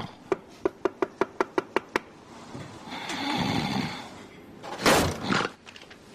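Rapid knocking, about eight sharp knocks in under two seconds. A longer breathy sound follows, then a loud short rustle about five seconds in.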